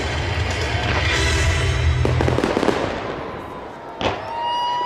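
Aerial fireworks: a dense crackle of many shells bursting together that thins out after about two seconds. About four seconds in comes a sharp bang, followed by several whistling tones from whistle shells.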